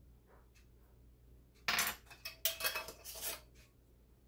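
A measuring spoon against a small jar of salt: a sharp scrape a little under two seconds in, then about a second of clinks and rattles with a brief ring.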